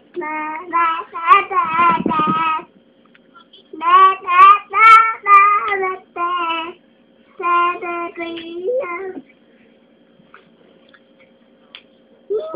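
A small child singing three short phrases of held notes.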